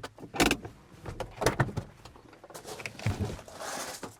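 Car door clunks and clicks, a few separate knocks, with a soft rushing hiss in the last second or so.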